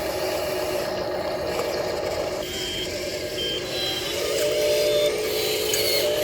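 Steady whine of the small electric motors of a radio-controlled model excavator at work, growing a little louder with a higher tone added about four seconds in.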